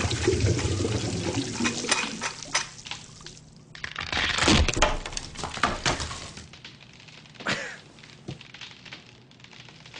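Water splashing and pouring, mixed with a series of sharp knocks and clatter, with a louder rush about four seconds in.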